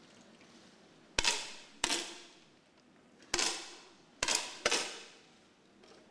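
10 m air rifles firing on the range: five sharp shots in quick, uneven succession, each followed by a short echoing decay in the hall.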